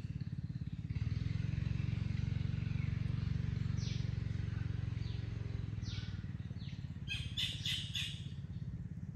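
Birds calling over a steady low engine rumble: short chirps that sweep downward in pitch, then a quick burst of four or five sharper calls about seven seconds in.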